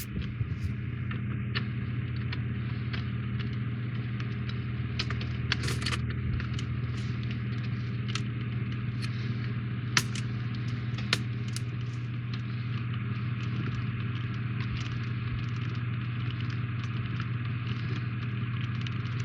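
Steady low electrical hum, with scattered small clicks and taps from plastic and metal model parts being handled and fitted together.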